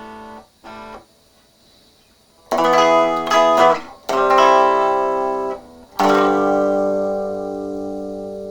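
Epiphone SG Junior electric guitar played clean through a small practice amp with the overdrive off. Two short notes come in the first second, then a few strummed chords from about two and a half seconds in, the last one left ringing and slowly fading.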